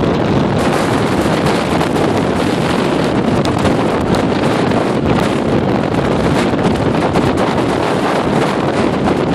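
Gale-force wind, around 60 mph, blasting across the microphone in a loud, steady roar of buffeting.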